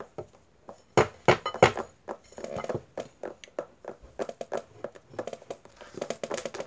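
Long artificial fingernails tapping and clicking on a hard object as it is felt blind: three sharp taps about a second in, then a quicker run of lighter clicks and scrapes.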